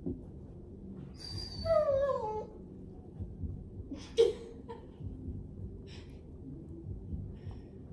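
Young shepherd-type dog nosing at a person lying on carpet. It gives one falling whine about a second and a half in and a short sharp sound about four seconds in, with faint breathing and rustling between.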